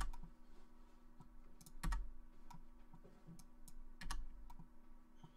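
Computer mouse clicks and keyboard key presses: scattered light clicks, with louder ones near the start, about two seconds in and about four seconds in, over a faint steady hum.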